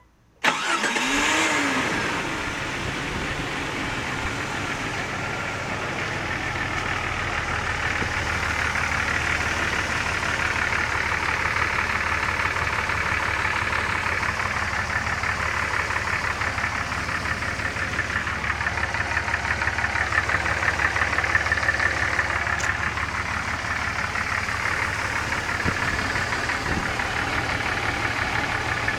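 Car engine cranked and started, then running at a steady idle, with a high, fast-pulsing whir over the engine note: the weird noise the car is being recorded for.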